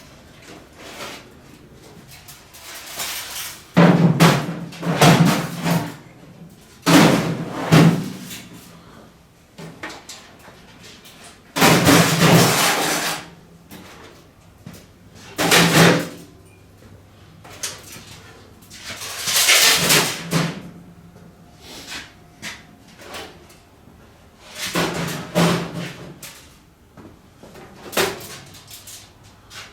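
Stripped steel computer cases and panels clanking and scraping as they are lifted off a scale and set down, in irregular loud bangs about a second long with quieter handling between.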